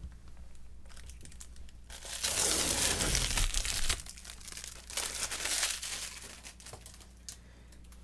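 Clear plastic protective film being peeled and pulled off the arm of an LED desk lamp, crinkling and tearing in two stretches, the first and louder lasting about two seconds.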